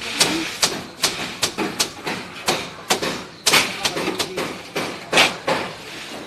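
Irregular sharp knocks and taps of building work, about two or three a second, the loudest about five seconds in.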